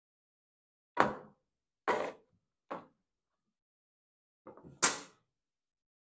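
A handful of sharp knocks and clacks of tools and hard plastic mower parts being handled, with the loudest one about a second in and another near the end.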